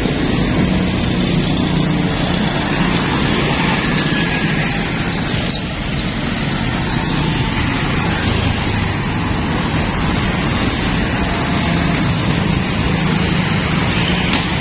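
Busy road traffic going by: a stream of motorcycles and cars, a steady mix of engine hum and tyre noise.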